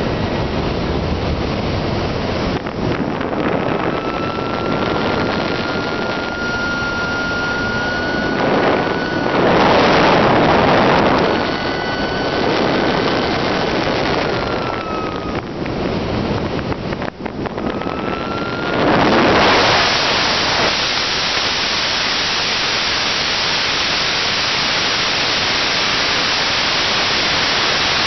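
Airflow rushing over the onboard camera of a Swift S1 model aerobatic glider in flight, with a thin whistle that slowly rises and falls for several seconds. The rush swells briefly about a third of the way in. About two-thirds of the way through it becomes louder and hissier.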